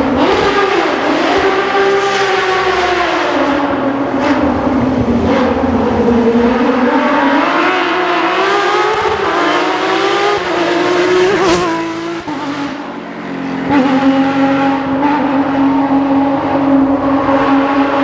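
Porsche 997 GT3 rally cars' flat-six engines revving hard as they race past, the note climbing and dropping again and again through gear changes. There are a few sharp cracks along the way, a short quieter dip near two-thirds of the way in, and then a steadier high engine note.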